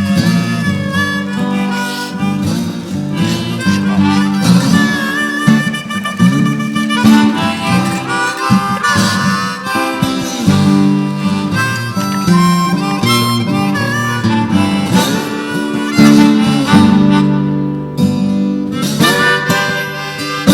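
Background music: harmonica playing a melody over acoustic guitar accompaniment, in a bluesy style.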